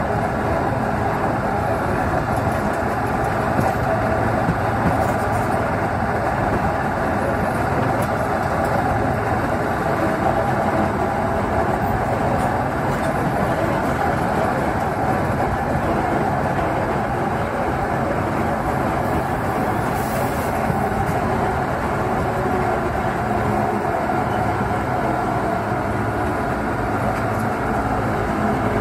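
Diesel locomotive's engine running steadily at close range while the train rolls, its drone mixed with the rumble of wheels on the rails.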